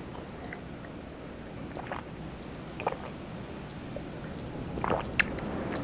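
A person drinking from a glass, with a few short swallowing gulps, over a steady low rumble of strong wind outside.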